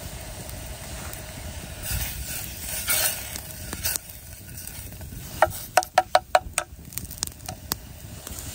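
A spoon stirs and scrapes soup in a metal canteen pot on the boil, with scrapes in the first half. About five seconds in come a quick run of ringing clinks of spoon against metal.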